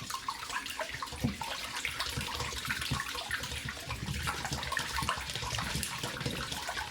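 Whisk beating eggs and milk in a bowl: a steady run of quick clicks against the bowl with liquid sloshing.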